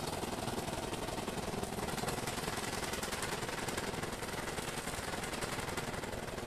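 Stick (shielded metal arc) welding on steel: the electrode's arc crackling and sputtering as a dense, fast, unbroken crackle.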